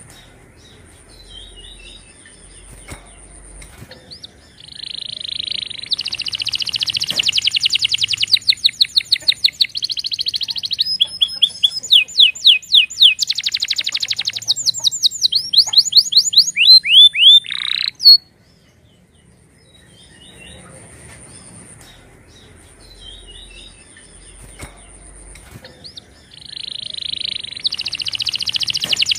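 Domestic canary singing a long song of fast rolling trills and repeated whistled notes that stops abruptly about 18 seconds in. Soft chirps follow, and a new trilling song starts near the end.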